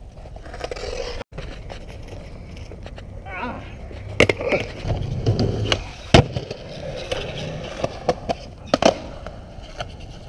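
Skateboard wheels rolling on concrete, broken by several sharp clacks of the board popping and landing, the loudest about six seconds in.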